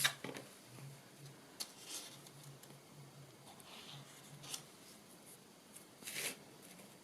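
Faint handling sounds of paper crafting at a table: a few light clicks and rustles of paper and small pieces being handled, the sharpest right at the start and another about six seconds in.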